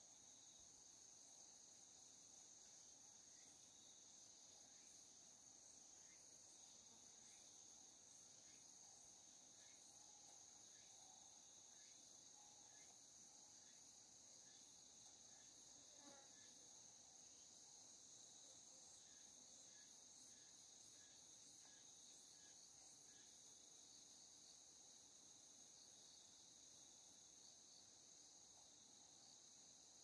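Faint, steady high-pitched insect chorus with a fast, even pulsing trill.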